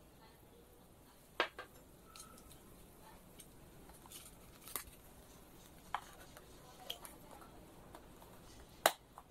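Clear plastic lid of a self-heating meal box being fitted and pressed down onto its container, giving several sharp plastic clicks and snaps, the loudest near the end, as the lid seats and seals.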